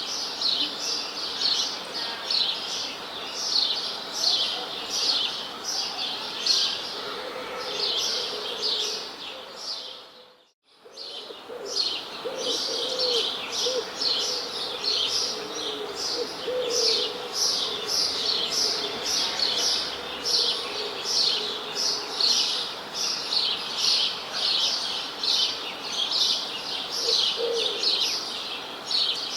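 Birds chirping in a dense, continuous chorus of quick, high chirps repeated several times a second, with a few lower calls beneath. The sound fades out for a moment about ten seconds in and comes straight back.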